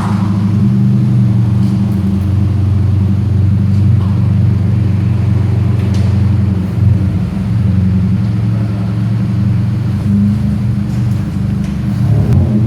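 A car engine running loudly at a steady speed with a deep drone, easing off briefly about seven seconds in and then steadying again.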